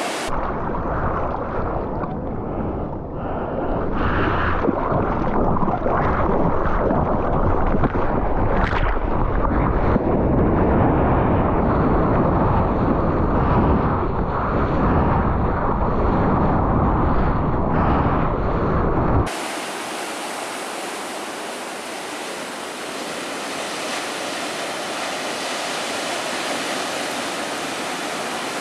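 Water rushing and splashing past a board-mounted GoPro, dull and muffled through the camera housing. About 19 seconds in it cuts sharply to the steady, brighter hiss of surf breaking.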